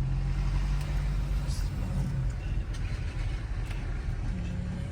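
Car being driven: a steady low engine hum and road noise heard from inside the cabin.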